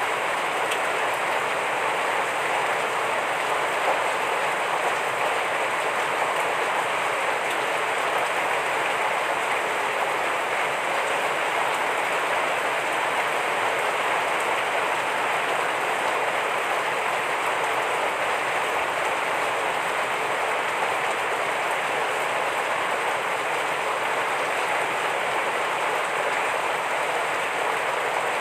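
Heavy rain falling steadily, a dense even hiss of drops without break or change.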